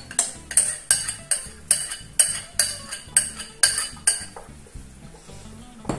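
A spoon scraping and knocking against the inside of a plastic bowl, emptying the last of a flour-and-water mix into a pot. The sharp strokes come about two or three a second and stop about four seconds in.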